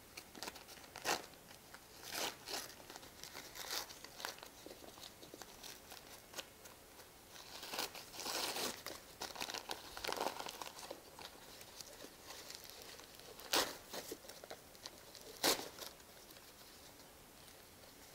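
Crumpled printed-paper packing crinkling and rustling as it is pulled out of a cardboard box and handled, in irregular spells with a few sharp crackles.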